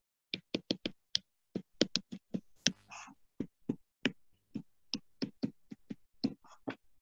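Stylus pen tapping and clicking against a tablet or touchscreen while handwriting: an irregular run of short, sharp clicks, about three a second.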